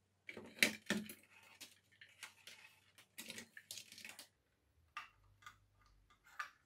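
Hands handling a plastic toy sewing machine and its plastic foot-pedal switch: light clicks, knocks and rustling, busy for the first few seconds, then a few scattered clicks.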